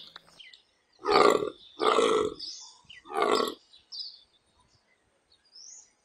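Young nyala antelope giving three short, hoarse calls about a second apart, with faint bird chirps between and after them.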